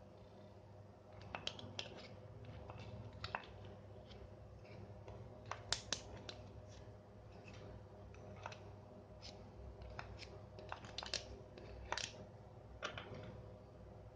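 Small parts of a Boyu aquarium water pump being handled during repair: irregular light clicks and taps, over a faint steady low hum.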